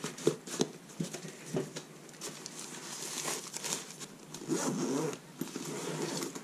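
Zipper on a soft fabric drone shoulder bag being pulled shut, a raspy run of zipping amid light knocks and rustling as the bag is handled.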